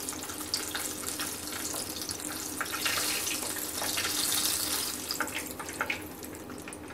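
Hot oil sizzling and crackling around a breadcrumb-coated potato cheese finger shallow-frying in a pan. The sizzle eases in the last couple of seconds, with a few sharp pops, as the finger is lifted out of the oil with tongs.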